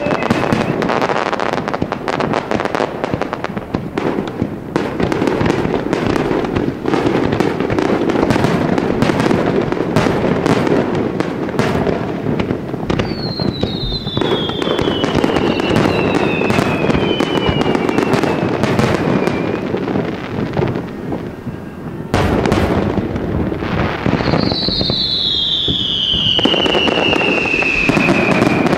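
Fireworks display: dense crackling and popping of bursting shells throughout, with a sharp bang after a brief lull about two-thirds of the way in. Two long whistles fall in pitch, one about halfway through and one near the end.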